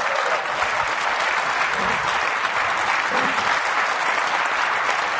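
Large audience applauding steadily, a dense sustained clapping.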